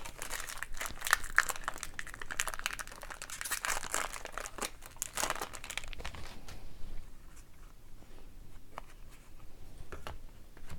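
Hockey card pack wrapper crinkling and tearing open for about six seconds, then quieter rustling and light taps as the cards are handled.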